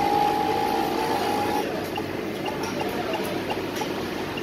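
Programmable pattern sewing machine being jogged from its touch-panel arrow keys: a steady electronic tone lasting almost two seconds, then a few short blips as further key presses follow, over a steady background hum.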